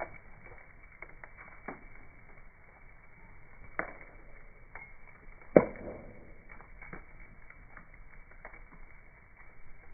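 Bonfire crackling, with scattered small pops and one loud sharp pop about halfway through, heard slowed down and dull with the slow-motion footage.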